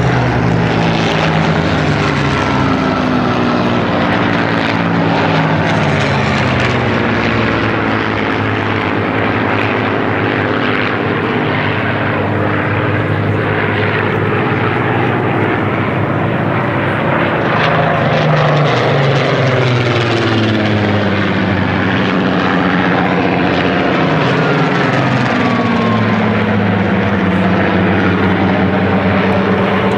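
A large formation of Spitfires flying past, their piston engines droning together. The engine notes drop in pitch as aircraft pass, twice in the second half.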